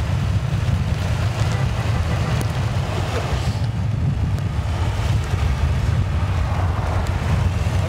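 Steady road and wind noise from a moving vehicle, with wind rumbling on the microphone.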